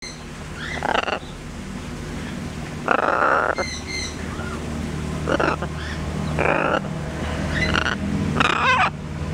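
Blue-and-gold macaw making short, rough grunting squawks while playing, about five in all, one about three seconds in a little longer than the rest.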